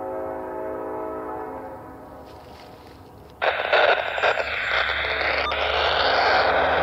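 Air horn of an approaching Union Pacific diesel locomotive sounding a sustained chord that fades over about three seconds. About three and a half seconds in, a loud rushing noise cuts in suddenly and holds, with a low rumble building beneath it.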